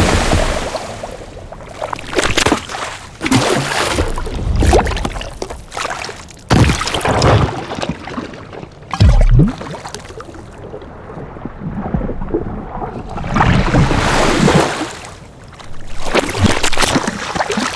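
A string of designed water sound effects played one after another: splashes, sloshing and gurgling water and whoosh-like washes, several with a deep low thump, the heaviest about nine seconds in. Under them runs a background ambience.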